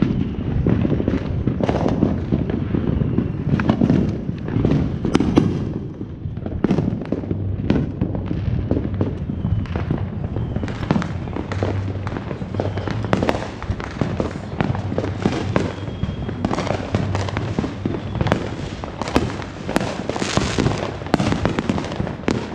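Neighbourhood fireworks and firecrackers going off on all sides: a dense, continuous crackle of sharp pops and bangs with no break.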